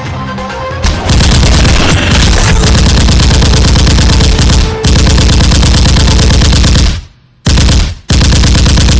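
Rapid automatic gunfire in long bursts, starting about a second in and broken by short pauses, the longest about two-thirds of the way through.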